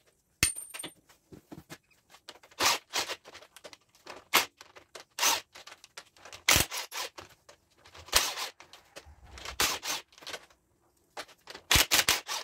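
Irregular metallic clinks and scrapes of a socket, bolts and the drive flange being worked off a Land Rover Series front hub, one early clink ringing briefly. Near the end comes a quick cluster of rattling hits from a cordless impact wrench on a hub bolt.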